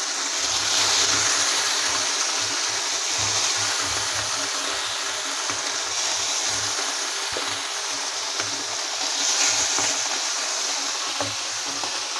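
Fish frying in a little hot oil in a flat pan: a steady sizzling hiss with scattered small pops as each fish goes in. It swells louder about a second in and again near the end.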